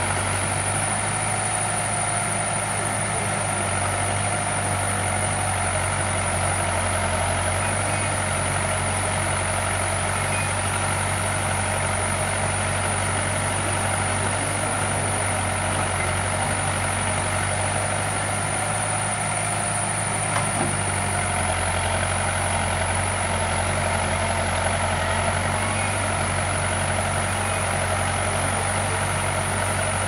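Diesel engine of an Escorts backhoe loader running steadily while it loads soil, a constant low drone with little change.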